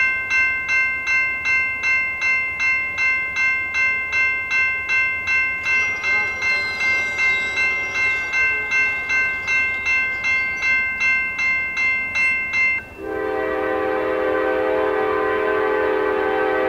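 Grade-crossing warning bell ringing rapidly, about two strikes a second, until it stops abruptly about 13 seconds in. A Norfolk Southern Dash 9 locomotive's air horn then sounds one long, steady chord as the train approaches the crossing.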